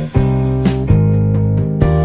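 Instrumental background music with guitar over sustained low notes, the chord changing about every second.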